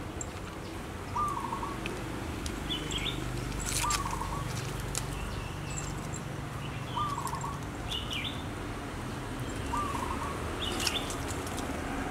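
Birds calling outdoors: short calls repeated every two to three seconds, a lower call and a higher one coming in turn, over a steady low background hum.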